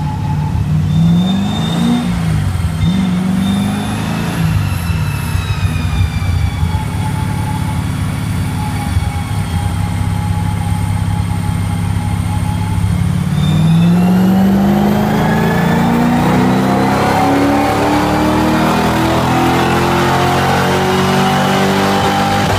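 Audi RS4 with a swapped-in 6.2-litre Chevrolet LS V8 running on a chassis dyno. The revs rise and fall a couple of times, hold steadier for a while, then from about two-thirds in climb steadily and louder in a long pull.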